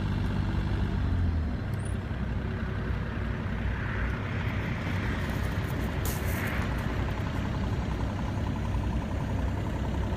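Hitachi mini excavator's diesel engine running steadily, its low tone dropping slightly about a second in. A hiss swells and fades in the middle.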